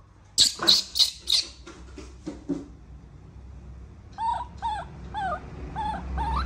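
Baby monkey crying for its mother: four loud, sharp cries in quick succession, fading into softer ones, then a run of short whimpering calls that rise and fall in pitch, about two a second. These are a young monkey's distress calls after waking up alone.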